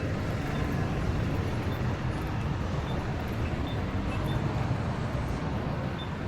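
Busy city street ambience: a steady low rumble of road traffic, with a few faint short high blips.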